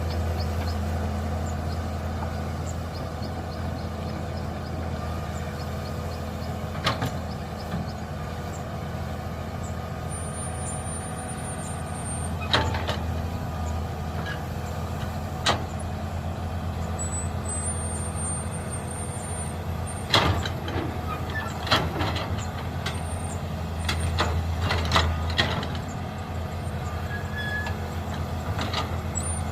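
A mini excavator's diesel engine runs steadily while digging, with sharp knocks every few seconds, some in quick clusters, from the bucket and arm at work.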